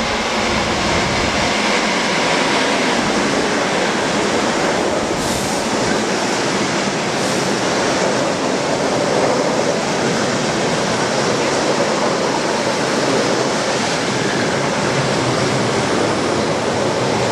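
Green suburban electric multiple unit rolling into the station platform close by: a loud, steady rumble and rush of wheels and carriages passing.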